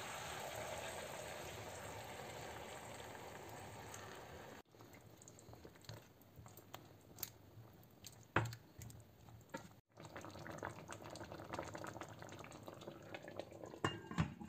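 Tomato sauce poured over zucchini slices in a hot stainless-steel pan, with a steady sizzling hiss that fades over the first few seconds. Then quieter scraping and scattered light knocks of a wooden spoon against the pan, and a few sharp clinks as a glass lid is set on the pan near the end.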